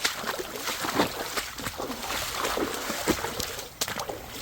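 Water sloshing and splashing in irregular bursts as someone wades through a shallow stream, over the steady rush of running water.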